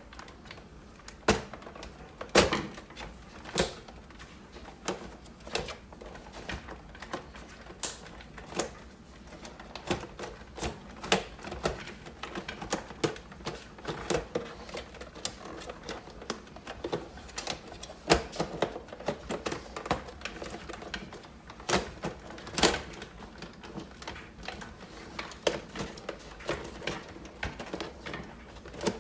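Irregular sharp clicks and knocks of a Keurig Supreme coffee maker's plastic housing being pried and worked loose by hand, with a few louder snaps among them.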